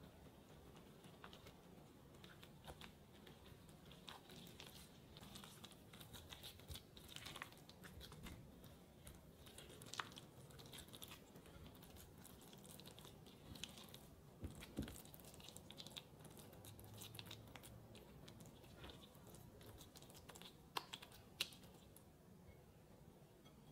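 Silicone spatula stirring a thick batter of grated zucchini, carrot, egg and flour in a glass bowl: faint, irregular wet squelching and scraping, with a few sharper clicks, two of them close together near the end.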